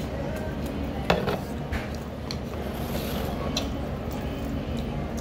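Eating at a table: a ceramic soup spoon and bowls clinking lightly a few times, the sharpest click about a second in, over a steady low hum.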